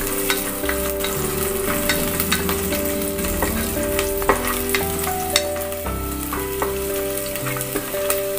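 Sliced onions sizzling in ghee in a pressure cooker, stirred with a spatula that scrapes and taps against the pot now and then.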